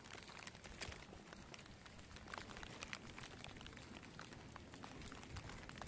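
Faint light rain, with scattered raindrops ticking irregularly on the phone.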